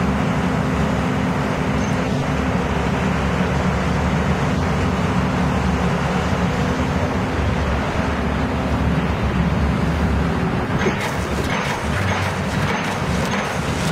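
Hydraulic piling rig running with a steady engine drone. About eleven seconds in, a rapid clatter of knocks starts over it.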